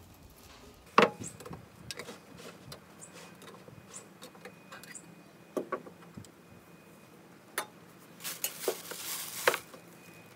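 Handling a metal can of polyurethane and its stirring stick: scattered small clicks and knocks, with one sharp click about a second in, and a brief rustling near the end.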